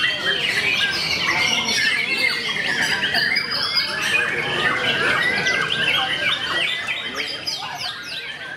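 White-rumped shama singing a fast, varied song of whistles and chirps, fading out near the end.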